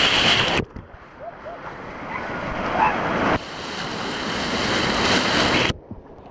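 Rushing, splashing white water churning around riders' inner tubes on a water-park rapids ride, with wind buffeting the microphone. The noise changes level abruptly three times, dropping about half a second in, jumping back up halfway through and dropping again near the end.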